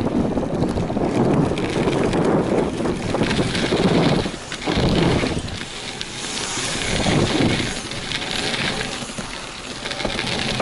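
Wind rushing over an action camera's microphone, with tyres rolling along a BMX track, the noise swelling and dipping in waves as the rider goes over the track's bumps.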